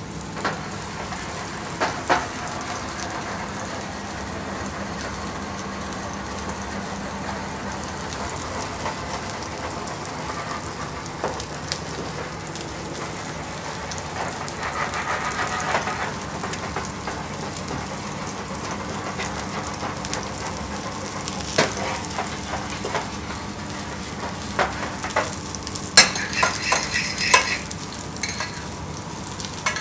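Steady sizzling of a string-tied beef fillet searing in a frying pan, with a few clinks of a small steel saucepan against the range, most of them near the end.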